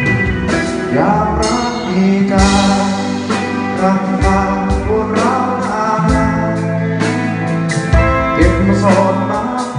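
Music: a song sung over guitar, with held bass notes and a steady beat.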